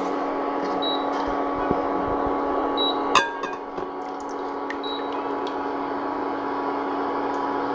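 Steady electrical hum of an induction cooktop heating an enamelled cast-iron Dutch oven. A nylon slotted spoon scrapes and clicks against the pot, with one louder knock about three seconds in.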